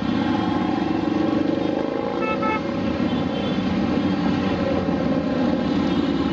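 A parade of many motorcycles riding past, their engines running in a steady mixed drone. A brief horn toot sounds about two seconds in.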